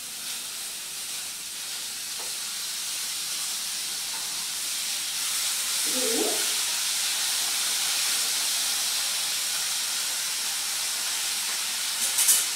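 Grated cucumber sizzling in hot oil in a kadai, a steady hiss that builds over the first few seconds and then holds. A few sharp clicks near the end.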